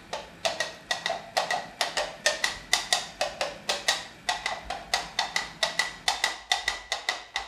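Sound-effect horse hoofbeats: hard hollow knocks struck in a quick galloping rhythm, about five or six a second, standing in for a horse ridden at speed.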